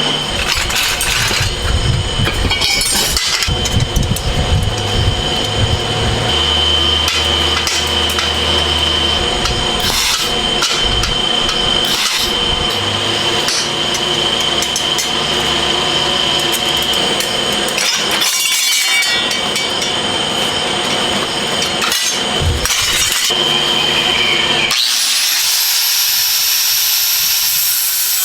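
Metalworking shop sounds: a power tool runs with a steady high whine under repeated sharp metal knocks and clanks. About 25 seconds in, this gives way to an even, steady hiss.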